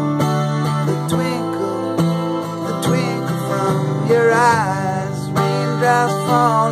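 Steel-string acoustic guitar strummed in a steady rhythm, with a man singing over it; his voice holds a wavering note about four seconds in.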